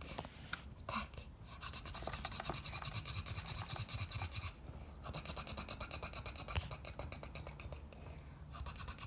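Male cockatiel making a rapid, raspy pulsing noise in two stretches of about three seconds each, with a short break between them.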